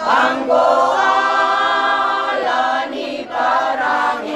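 A group of women singing together as a choir, holding long notes, with a brief break about three seconds in.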